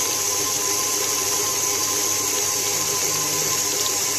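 KitchenAid Artisan stand mixer running steadily, its beater creaming butter, sugar and egg in a metal bowl.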